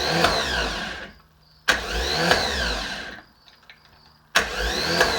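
1955 Chevrolet 210's starter motor cranking the engine in short bursts, about a second and a half each, with a pause between them. Each burst opens with a click and a whine that rises and falls. The engine does not catch, and the starter stops each time, which is what is being tested after it had stayed engaged.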